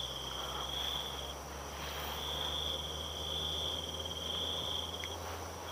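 Crickets trilling in a steady high drone, one trill breaking off briefly about a second and a half in before carrying on.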